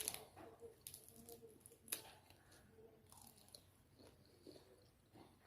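A person chewing food, faint, with scattered small crunches and clicks, one a little sharper about two seconds in.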